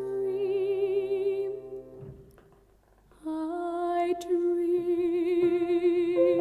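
Female musical-theatre singer with piano accompaniment: she holds a long note with vibrato that fades away about two seconds in, then after a brief hush starts another long held note with vibrato as piano chords come in beneath it.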